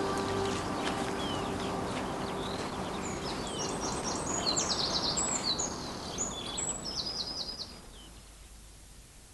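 Outdoor ambience with small birds chirping: a run of quick, high chirps in the middle, over a steady hiss, then it all fades down near the end.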